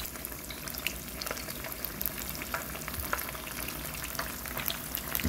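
Breaded fish fillets frying in hot oil in an electric skillet: a steady sizzle with many small pops and crackles.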